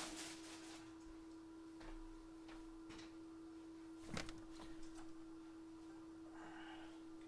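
Faint steady hum at one pitch, with a few soft clicks and a brief rustle of handling.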